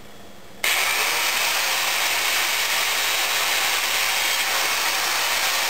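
Power drill starting up about half a second in and running steadily as it drills holes at centre-punched marks in a rolling ball sculpture frame.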